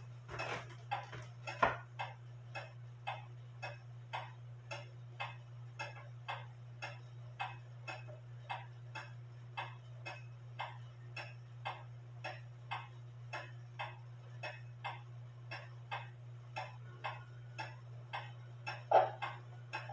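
Drop dial clock with a double-fusee, wooden-plate movement ticking steadily, about two and a half ticks a second, as its pendulum swings. A knock comes about two seconds in and a louder bump near the end as the case is handled.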